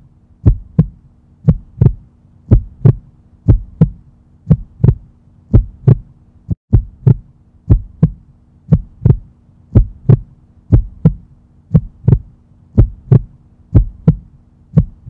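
Heartbeat sound effect: paired lub-dub thumps about once a second over a low steady hum.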